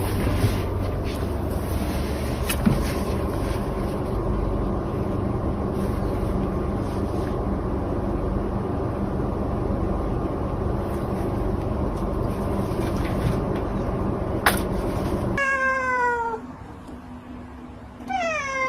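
A steady rumbling noise with a sharp click near its end cuts off abruptly, followed by a cat meowing twice, each meow falling in pitch.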